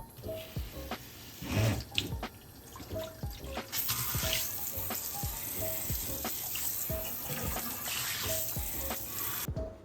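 Water running from a tap, turned on a few seconds in and shut off suddenly just before the end, after a few knocks and clatters of handling.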